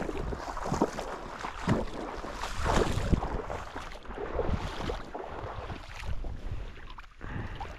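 Water splashing as someone moves through shallow marsh water, in uneven strokes, with wind on the microphone.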